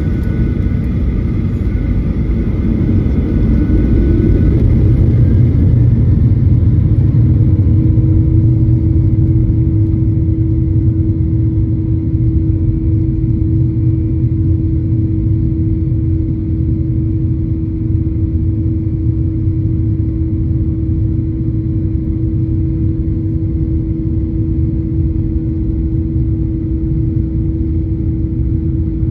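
Boeing 737 MAX cabin noise: a loud, steady low rumble from its CFM LEAP-1B engines and airframe, swelling over the first few seconds. A steady hum joins in about six seconds in.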